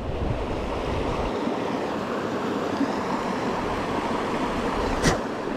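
Small stream flowing steadily with an even rushing sound, a low rumble underneath for about the first second, and one sharp click about five seconds in.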